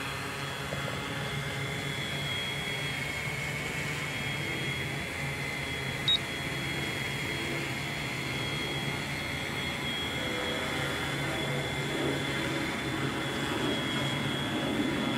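Tarot FY680Pro hexacopter's six brushless motors and 12-inch propellers whining steadily as it hovers, with one short high beep about six seconds in.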